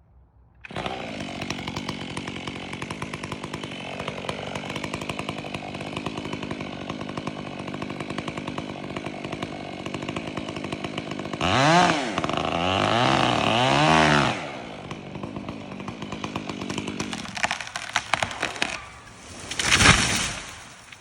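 Stihl MS 500i fuel-injected two-stroke chainsaw starting up about a second in and running at idle. Around the middle it is revved in several quick throttle blips, pitch rising and falling, then revved hard once more near the end before it cuts off.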